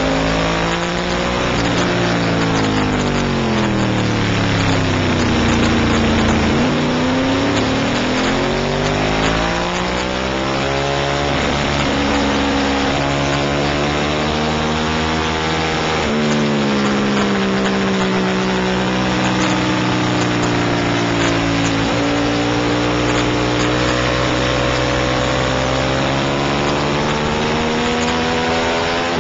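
Racing motorcycle engine heard onboard at speed. The revs climb and fall as the bike accelerates, brakes and changes gear, dipping lowest about six seconds in, with sudden drops in pitch near the middle and later on, over a steady rush of wind noise.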